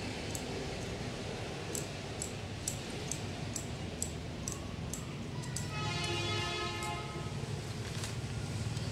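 Rustling and crinkling of a roll of stiff mesh flower wrap being handled, with scattered sharp clicks over a steady low hum. About six seconds in, a horn sounds once, one steady tone lasting over a second.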